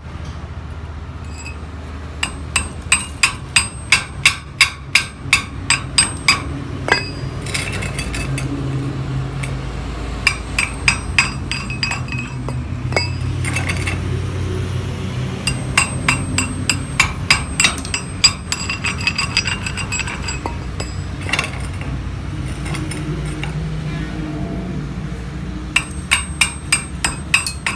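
A metal tool knocking slag off a fresh stick-welded bead: sharp, ringing metallic taps, about three a second, in several runs with pauses between, over a steady low hum.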